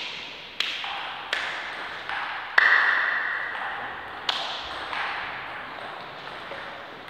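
Table tennis rally: the ball clicking off bats and table about seven times, roughly every half-second to second, each hit ringing on in a large echoing hall. The loudest hit comes about two and a half seconds in.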